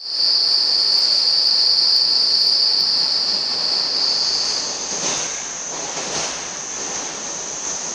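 Commuter train running, heard from inside the passenger car. A loud, steady, high-pitched squeal lasts about the first four and a half seconds, then gives way to the rumble of the ride with a few knocks around five to six seconds in and a fainter high whine.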